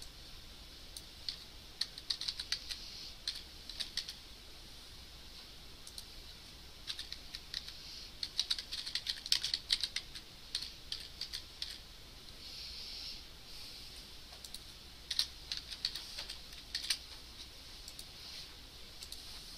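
Computer keyboard typing: irregular runs of quick keystrokes broken by short pauses.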